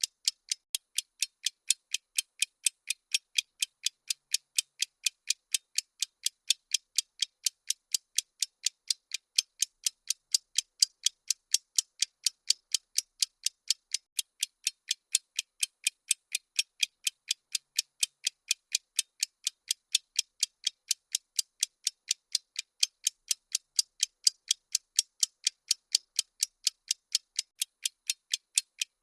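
Countdown-timer ticking sound effect: steady, evenly spaced, thin high clicks, a few each second, with no change in pace.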